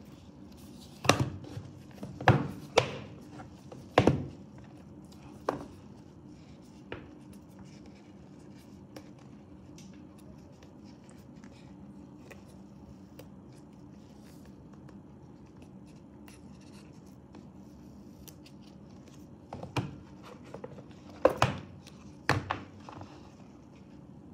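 Cardboard packaging of an Apple Watch box being handled and set down on a desk. There are sharp knocks and taps in the first few seconds, a quiet stretch, then another cluster of knocks and scrapes near the end as the inner tray is slid out.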